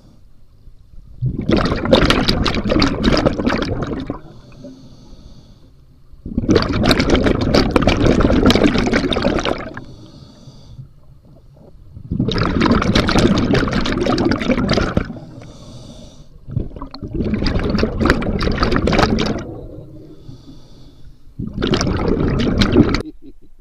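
A scuba diver breathing through an open-circuit regulator, heard up close. Each exhale sends out a rush of bubbles, a loud gurgling surge of two to three seconds. These come about every five seconds, with a faint hiss of the inhale through the regulator between them.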